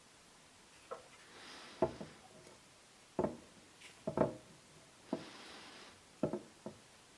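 A perfume bottle and its packaging handled on a hard surface: a series of about eight light knocks and taps, irregularly spaced, with two brief soft hisses between them.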